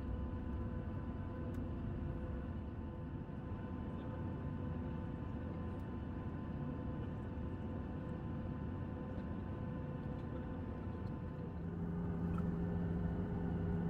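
Cabin noise of a Boeing 737-700 moving on the ground: its CFM56-7B jet engines hum steadily over a low rumble, with a steady whine. About twelve seconds in, a low drone grows louder.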